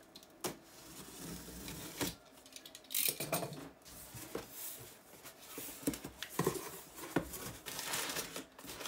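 Box cutter slitting packing tape on a cardboard box, then the cardboard flaps being opened and crumpled kraft packing paper rustling, with scattered knocks of the cardboard.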